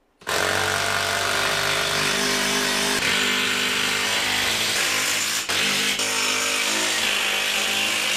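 A loud, steady machine motor running, cutting in suddenly just after the start, with a brief dip about five and a half seconds in.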